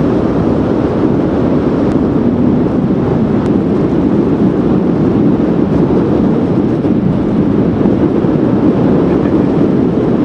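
Strong wind buffeting the microphone in a steady low rush, mixed with the noise of heavy surf breaking on the shore.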